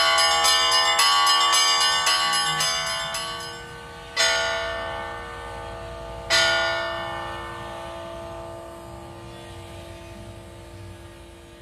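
Bells ringing: quick strokes at about four a second that stop about three and a half seconds in, then two single strokes about two seconds apart, each left to ring and fade slowly.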